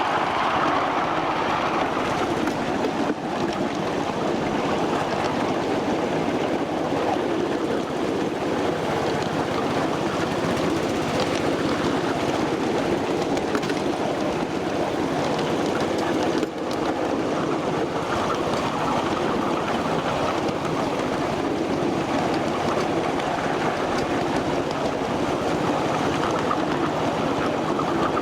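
Ride-on 1/8-scale miniature train rolling along its track: a steady rumble and clatter of the wheels on the rails, heard from on board.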